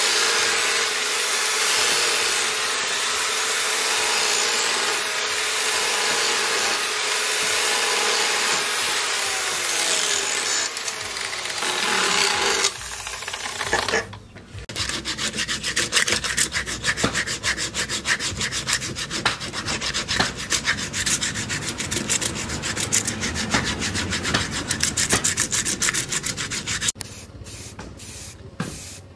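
Angle grinder grinding the steel of a leaf-spring billhook blade: a steady, loud grinding noise, with its pitch falling about ten seconds in as the disc slows. After a short break it works the blade again as a fast, uneven rasping chatter. Near the end it stops and the level drops.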